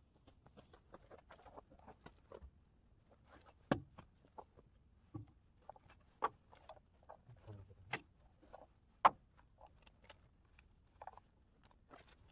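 Faint, irregular light clicks, taps and rustles of objects being handled, with a few sharper knocks standing out.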